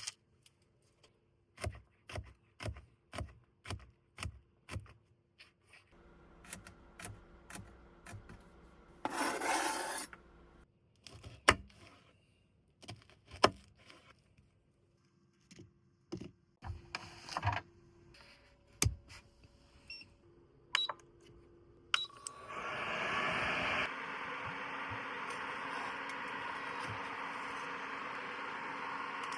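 Cooking preparation in a small space: a run of about seven evenly spaced knocks, then scattered clicks, scrapes and handling of utensils, with a brief hiss about nine seconds in. About 22 seconds in a steady rushing hiss starts and keeps going.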